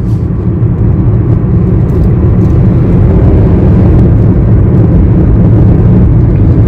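Steady engine and tyre-on-road rumble inside a moving car's cabin, heavy in the low end.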